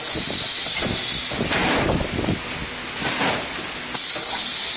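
Paste pouch packing machine running its cycle: the pneumatic sealing jaws let out bursts of air hiss about every one to two seconds, over a steady mechanical clatter.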